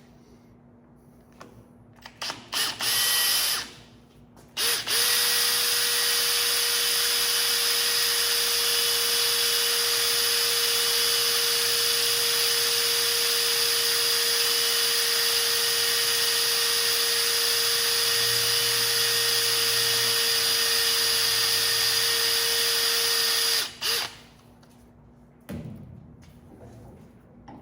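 Drill press motor started briefly and stopped, then run at a steady speed for about twenty seconds while the bit drills a hole through a pool ball, then switched off.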